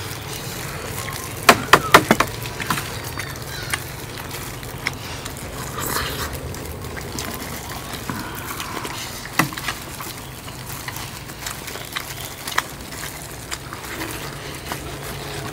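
Spoons clinking against plates while eating, a quick cluster of clicks about a second and a half in and a couple of single clicks later, over a steady low background hum.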